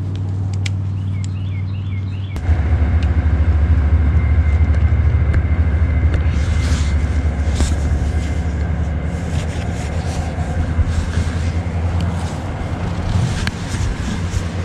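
Wind buffeting the microphone: a low rumble that jumps louder about two seconds in and then rises and falls in gusts.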